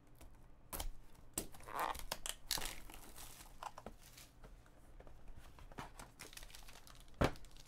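A hobby knife slits the seal of a 2016 Topps Tier One cardboard card box, then the box is handled and opened, with paper-and-foil rustling, crinkling and tearing broken by scattered clicks and taps.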